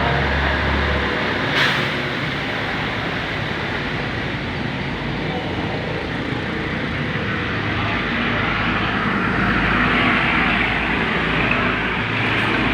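Steady rumble and hiss of passing vehicles, with one sharp click about one and a half seconds in.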